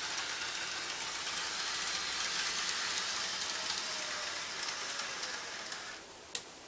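N gauge model train running on the track, a steady rattling hiss of small wheels with a faint motor whine that drops in pitch as the train slows, going quiet as it stops. A single sharp click follows just after.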